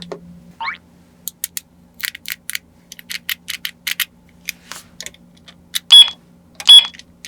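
Small plastic toy pieces clicking and tapping as they are handled, a rapid irregular run of sharp clicks. A brief rising squeak comes just after the start, and two louder ringing clinks come near the end.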